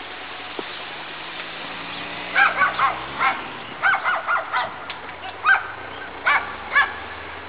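A crow cawing: about a dozen short calls in quick groups of two or three, starting a couple of seconds in and stopping near the end, over a steady outdoor hiss.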